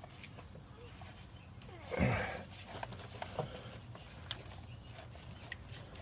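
Scattered small clicks and knocks of hands working on spark plug wires and coil boots on an engine. About two seconds in there is one louder, short rough noise.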